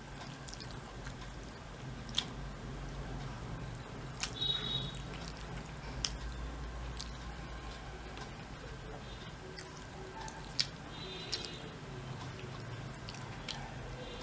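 Quiet chewing and wet mouth sounds of a person eating rice and curry by hand, with a few sharp clicks and a low steady hum behind.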